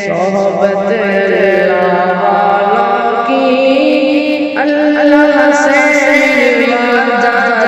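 Naat being sung: voices hold long, slowly gliding notes, with a second voice line sustained underneath.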